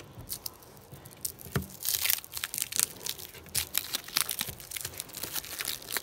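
Foil wrapper of a trading-card pack crinkling and tearing as it is opened by hand. A few scattered crackles at first, then dense crinkling from about two seconds in.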